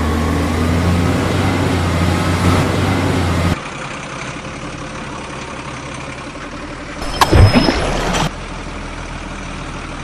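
Truck engine running with a low steady drone and a slowly rising pitch, cutting off abruptly about three and a half seconds in. A quieter steady engine noise follows, with a loud brief burst about seven seconds in.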